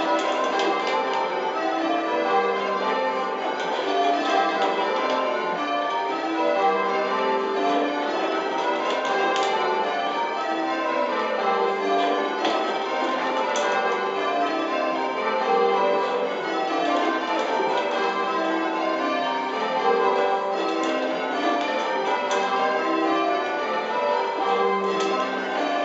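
Eight church tower bells rung full circle in Spliced Surprise Major change ringing: a continuous, even stream of bell strokes, the order of the bells changing from row to row.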